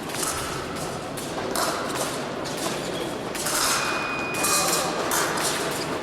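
Épée fencers' footwork thudding on the piste during a bout, with scattered sharp taps.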